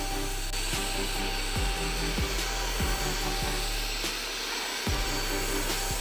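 Handheld vacuum cleaner running steadily while its small round brush nozzle is worked over a laptop keyboard, with light knocks and clicks of the nozzle against the keys every second or so.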